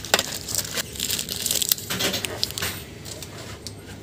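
Plastic chocolate-bar wrappers crinkling and rustling as bars are grabbed off a shelf and handled, in irregular crackles that thin out near the end.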